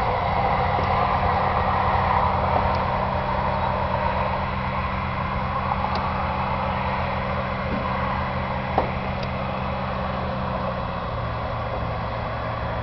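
Jabiru 3300 six-cylinder aircraft engine of a Thorp T-211 running steadily, heard from inside the cockpit. Its note drops slightly about eleven seconds in, and there is one brief click near the end.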